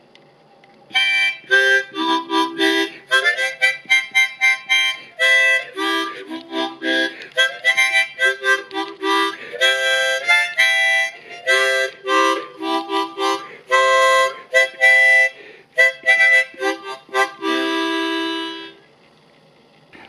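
Harmonica tune played in quick notes and chords, ending on one long held chord near the end.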